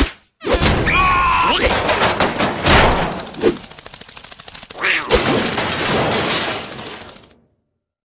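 Cartoon scuffle sound effects: a fast, dense clatter of hits and rattles lasting several seconds. Squealing cartoon voices cut in about a second in and again about five seconds in, and the clatter stops suddenly near the end.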